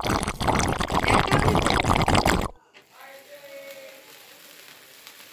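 Loud, dense crackling and rustling that cuts off suddenly about two and a half seconds in. A faint steady sizzle follows as a cake sparkler candle burns.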